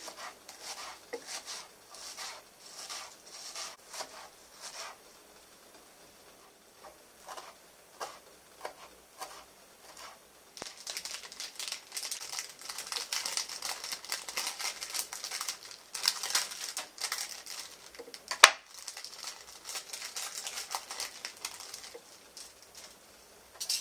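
A kitchen knife chopping herbs on a plastic cutting board in quick knocks for the first few seconds. Then plastic packaging crinkling and rustling, being handled and unwrapped, through most of the second half, with one sharp crack about two-thirds of the way through.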